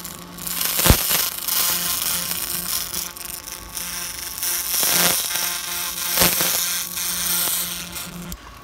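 Pulsed restoration laser ablating black crust from carved stone: a dense, rapid crackling buzz as the pulses strike the surface, swelling and fading as the beam moves, with a few sharper snaps and a steady low hum underneath.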